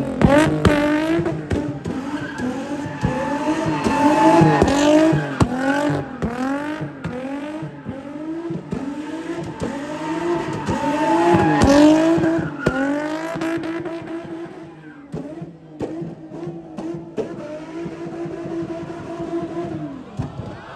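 Nissan 350Z's V6 engine revving hard while the car does donuts, its revs rising and falling about twice a second, with tyres squealing. Later the engine note steadies and gets somewhat quieter.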